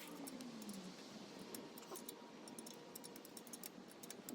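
Faint, irregular small metallic clicks and ticks of a 5 mm hex key working the bolts of a motorcycle chain guard.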